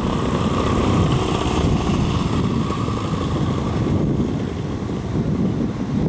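Paramotor trike's engine and propeller running as the trike rolls past, the engine sound easing off a little as it moves away, with wind buffeting the microphone.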